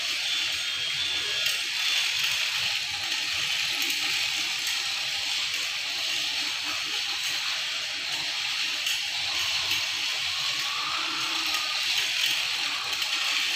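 Rail King battery toy train running around its plastic track: a steady whirring hiss from its small motor and wheels.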